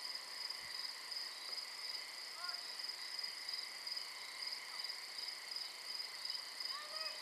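Crickets chirping, a steady high trill that pulses slightly. Faint distant voices come through briefly about two and a half seconds in and again near the end.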